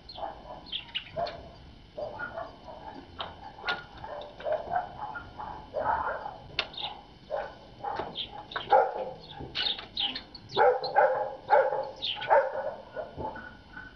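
Irregular run of short animal calls, many of them bark-like yelps, with brief high chirps among them. They grow louder and come thicker about two-thirds of the way through.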